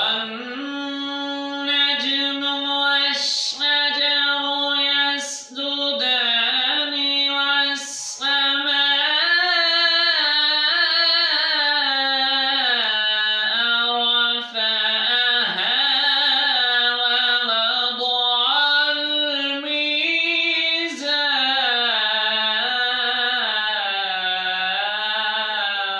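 A man's unaccompanied voice reciting the Quran in a melodic, chanted style, with long held and ornamented notes that glide up and down. Quick breaths break the first few phrases.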